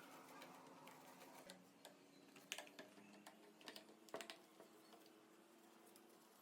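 Near silence: faint room tone with a few soft clicks and taps in the middle.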